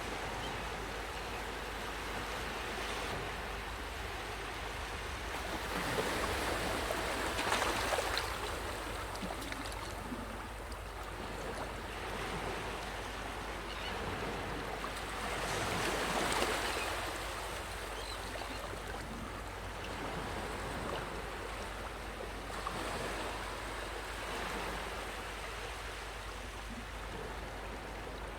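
Ocean waves washing onto a beach: a continuous rush of surf that swells and breaks louder three times, about a quarter, half and four-fifths of the way through, then falls back.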